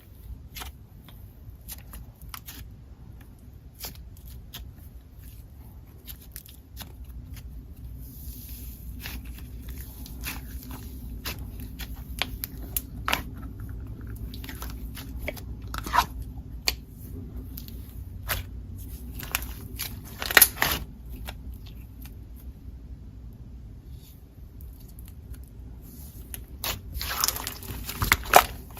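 Slime being pressed and squished by hand, giving scattered small crackles and clicks, with a dense run of crackling near the end.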